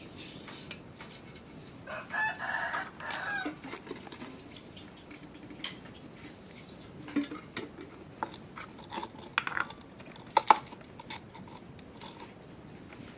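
A rooster crows once about two seconds in, over scattered clinks and taps of cookware and utensils, with a couple of sharp louder clacks later on.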